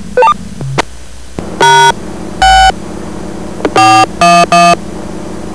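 Touch-tone (DTMF) keypad tones sent over a two-way radio: five short beeps, two spaced apart and then three in quick succession. They are the touch-tone command that calls up the speech-recognition prompt.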